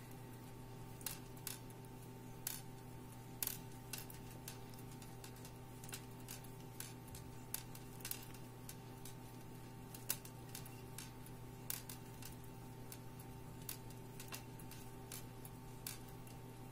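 Light, irregular clicks of a crochet hook against a knitting needle as stitches are bound off one by one, over a steady hum in the background.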